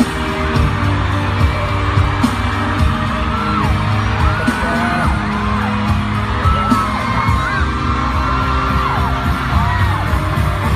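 Loud music with voices whooping and yelling over it.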